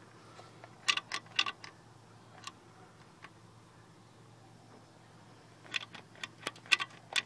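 Small metal parts clinking as they are handled: irregular sharp, ringing clicks, a cluster about a second in, a couple of single ones, then a quicker run near the end.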